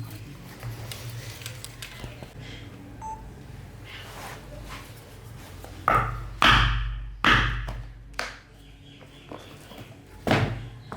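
Light tapping, then a run of loud knocks: three or four heavy blows a little over halfway through and one more near the end, each dying away quickly.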